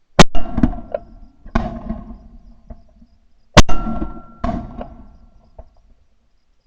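Two gunshots about three and a half seconds apart, each sharp crack followed within a second by a couple of duller thuds and a brief ringing.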